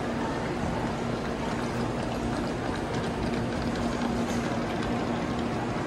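Steady rushing ambience of a Shinkansen station platform, with a low steady hum running through it.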